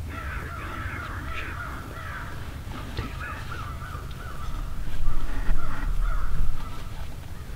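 A flock of wild turkeys calling close by: a steady string of raspy calls, with a low rumble swelling up in the second half.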